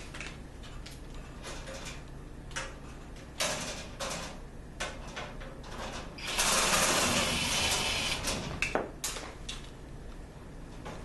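Cordless drill running for about two seconds in the middle, backing out a screw at the cabinet door's locking rod. Light metallic clicks and clanks of the parts being handled come before and after it.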